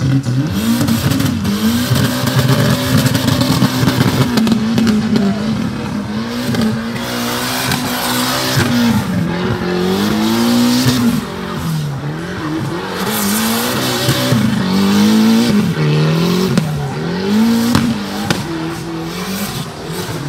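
Proton Putra coupé drifting in tight circles: its engine is held at high revs, then rises and falls roughly every second and a half as the throttle is worked, over the squeal of spinning, sliding tyres.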